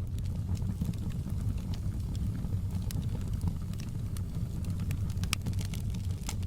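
Wood fire crackling in a fireplace: a steady low rumble of the flames with scattered sharp pops and crackles.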